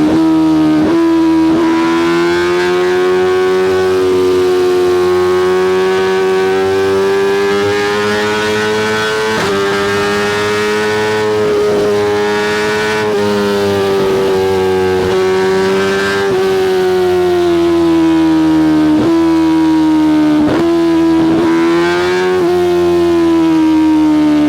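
2024 BMW S1000RR's inline-four engine through a full titanium Spark Grid-O exhaust, running with a steady note whose pitch drifts gently up and down, broken briefly several times.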